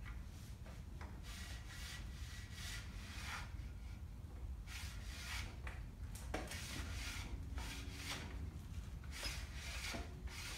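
Cast-iron head of an old Leblond drill press scraping along its column as it is worked off in repeated pushes. It is a series of short metal-on-metal rubbing strokes, each a second or less, with pauses between them.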